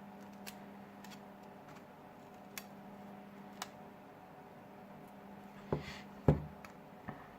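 A guitar pick and a suction cup working along the glass back cover of a Samsung Galaxy S6, making small sharp clicks and taps. There are a few faint ticks, then three louder knocks near the end, the middle one the loudest.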